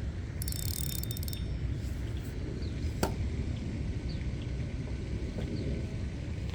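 Fishing reel being worked while a fish bites, its gears and ratchet clicking: a burst of rapid high clicks for about a second near the start and a single sharp click about three seconds in, over a steady low rumble.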